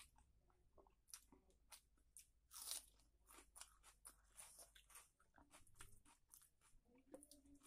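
Faint close-miked eating sounds: chewing a mouthful of rice and chicken curry, with irregular soft crunches and wet mouth clicks. The loudest crunch comes just under three seconds in.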